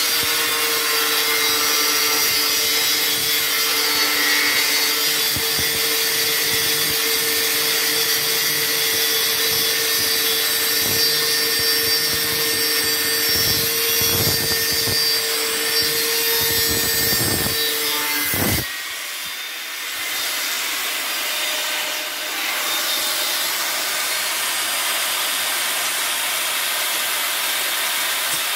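Dekton DK-AG850 850 W angle grinder cutting through a galvanised steel square tube with a thin cut-off disc: a steady motor whine under a harsh grinding hiss. About two-thirds of the way through the sound breaks off briefly, and the cutting noise carries on without the whine.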